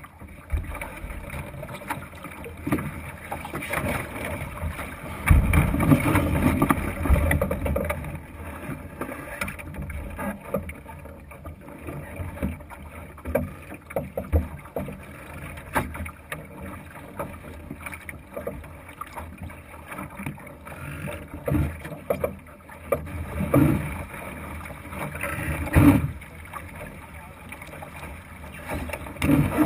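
Water rushing and slapping along a Thistle sailing dinghy's hull, heard through a camera fixed to the boat, with irregular knocks and thumps on the hull and deck. The knocks are heaviest about five seconds in and again near the end.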